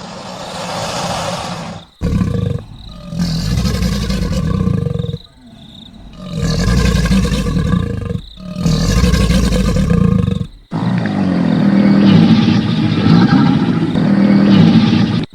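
Crocodiles growling and bellowing: deep rumbling calls in a run of short clips joined by abrupt cuts every two to three seconds. The last, longer call has a wavering pitch.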